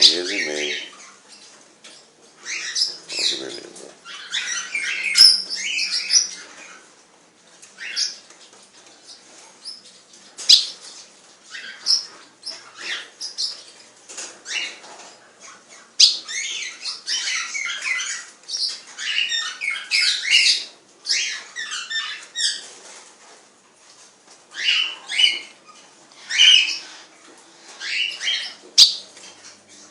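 Small parrots chattering and squawking in repeated bursts of high, rapid calls, with a few sharp clicks between the bursts.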